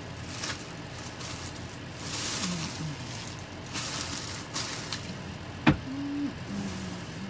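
Pot of soup on a gas stove coming to the boil: irregular surges of bubbling hiss. A single sharp click about five and a half seconds in is the loudest sound.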